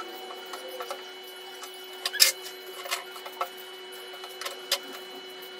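Knife work on carrot and cucumber: irregular sharp clicks and taps of a kitchen knife and cut pieces against a plate, the loudest a little past two seconds in, over a steady hum.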